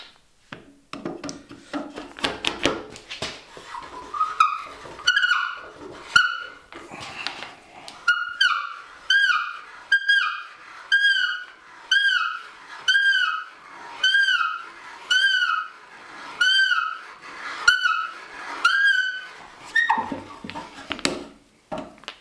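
Hand brace with an auger bit boring into wood: rasping and scraping of the bit cutting at first, then a squeak with each turn of the crank, about one every two-thirds of a second, for most of the rest.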